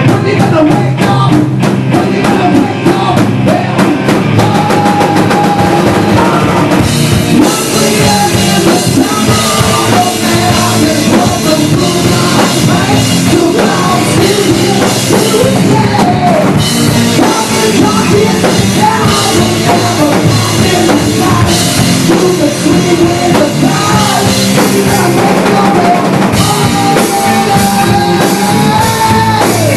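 Loud rock music with a full drum kit, bass and guitars playing a song section without words, over which a melody line wavers and bends in pitch.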